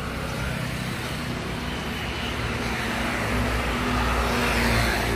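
Motor vehicle engines running: a steady low hum with hiss, growing louder toward the end.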